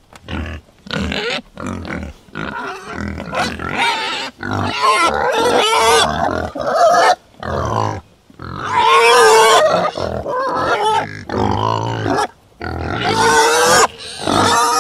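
Domestic pig grunting and squealing in a rapid, loud string of calls with short breaks between, some brief and some drawn out and wavering in pitch.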